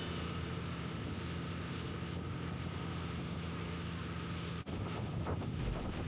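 An engine drone running steadily, with wind on the microphone. It breaks off in a sudden drop about four and a half seconds in, after which a noisier sound with faint clicks follows.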